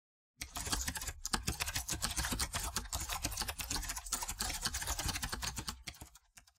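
Rapid keyboard-typing clicks, dense and continuous, starting about half a second in and fading out near the end.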